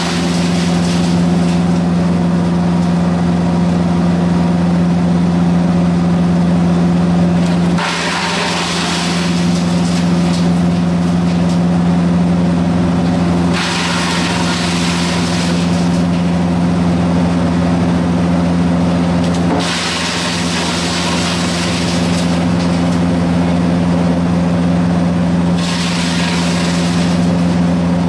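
Diesel engine of a ROTEXMASTER YXP-690 mobile wood chipper running steadily under load, with a hissing burst of chipping every six seconds or so as wood is fed through the rotating knives.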